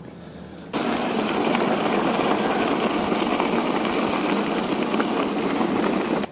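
A steady, loud, engine-like mechanical running noise mixed with hiss. It starts abruptly just under a second in and stops suddenly.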